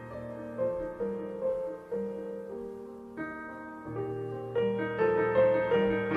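Background piano music playing a slow melody over held low notes.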